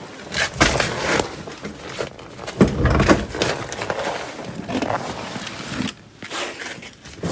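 A pickup truck's seat being shoved forward by hand: irregular scraping and clattering of the seat and its mounts, with several knocks and a heavy thud about three seconds in.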